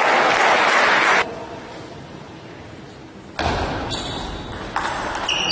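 Crowd noise in a large sports hall, a loud hiss that cuts off abruptly about a second in and leaves quiet hall ambience. The noise returns suddenly about three and a half seconds in, with a few sharp pings of a table tennis ball being struck near the end.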